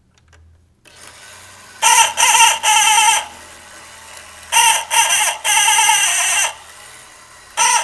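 Friction-driven rooster-call mechanism of an Emilian Wehrle rooster clock: a serrated wheel rubs a thin metal reed under a tin diaphragm, and a hollow wooden squawk box sounds the rubbing as a rooster's crow. It crows twice, each crow a wavering call broken into a few parts, and a third crow starts near the end.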